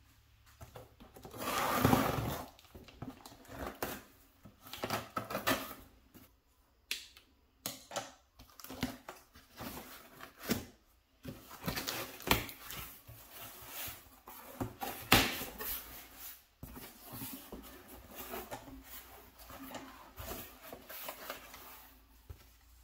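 Cardboard shipping box being opened by hand: irregular scraping, tearing and knocking of cardboard flaps and tape, with sharp louder rips about two seconds in and again about fifteen seconds in, and rustling of crumpled packing paper near the end.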